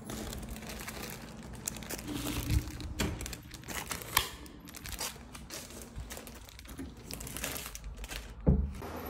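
Plastic courier mailer bag crinkling and rustling as it is handled, with a light switch clicking about four seconds in and a louder thump near the end.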